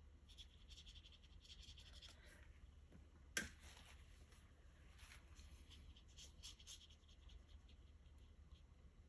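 Faint, scratchy strokes of a paintbrush on watercolour paper, with one sharp click about three and a half seconds in.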